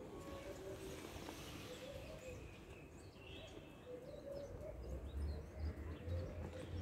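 Faint birdsong: short high chirps and repeated low wavering notes. A low rumble grows about two-thirds of the way through.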